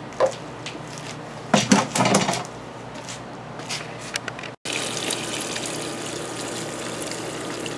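Water from a garden hose pouring onto red lava rock in a plastic bucket, a steady rushing splash that starts after a cut a little past halfway: the lava rock filter media being rinsed. Before it, a few short handling sounds.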